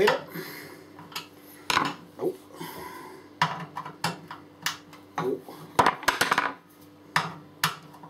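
Small metal hand tools and screwdriver bits clinking and knocking against each other and the worktop, in scattered separate clicks with a quick run of them around the middle.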